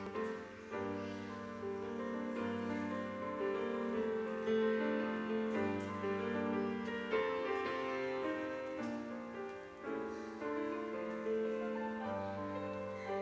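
Piano playing slow instrumental music, held chords changing every second or so over a low bass line.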